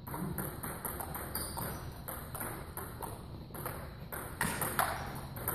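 Table tennis balls clicking off paddles and tables in rallies: a quick string of light clicks, with two louder hits about four and a half seconds in.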